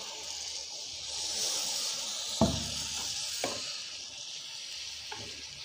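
Steady sizzling hiss as water is poured into a hot pan of ghee and brown sugar, the start of a sugar syrup, with a wooden spatula knocking against the pan a few times around the middle and once near the end.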